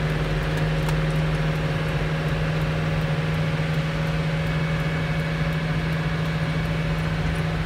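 Vehicle engine running at a steady speed while driving, a constant low drone with road and tyre noise, heard from inside the cab.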